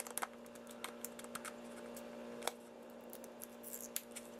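Light clicks and scratches of fingers and fingernail picking at the tape seal on a plastic vending-machine capsule, over a faint steady hum.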